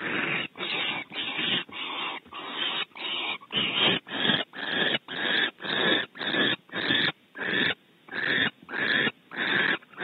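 Barn owl nestlings' begging calls: rasping hisses repeated about twice a second, with a brief pause about three quarters of the way through.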